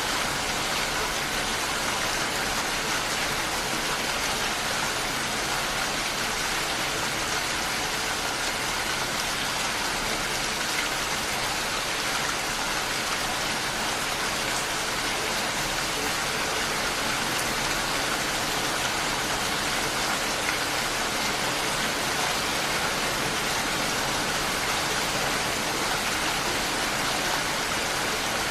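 Steady rain falling, an even hiss with faint scattered drop ticks and no change in intensity.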